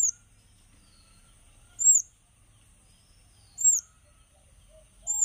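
A bird's short, high call repeated at an even pace, four times, about one every two seconds.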